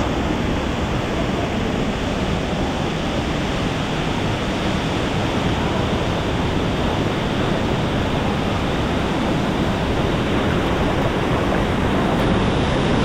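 Steady, even rush of water falling at a waterfall.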